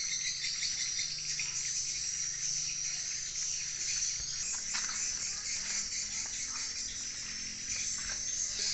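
Insects chirping in a steady, high-pitched trill.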